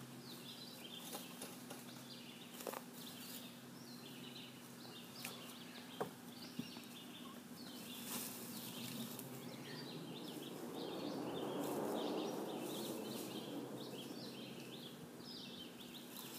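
A heavy chestnut oak log half being rolled and shifted by hand over sawdust and dirt: a few sharp knocks early on, then a rough scraping rustle that swells in the middle and fades near the end. Steady chirping and a low hum run underneath.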